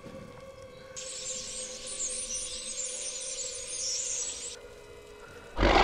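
A large flock of birds chattering, many high squeaky calls overlapping, coming in about a second in and cutting off about a second before the end, over a low steady drone. A sudden loud rushing noise starts right at the end.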